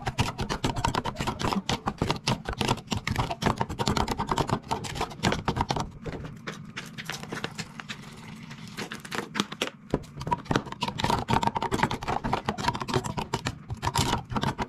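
Metal spoon stirring a chopped chili, garlic and fish-sauce mixture in a clear plastic bowl: rapid clicking and scraping of the spoon against the bowl. The clicking eases about halfway through, while a thin stream of liquid pours into the bowl, then picks up again.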